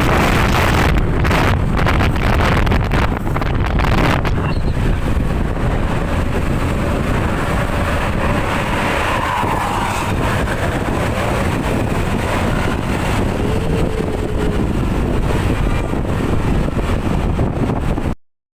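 Heavy wind buffeting the microphone over the rumble of a moving vehicle, gusting hardest for the first four seconds; the sound drops out briefly near the end.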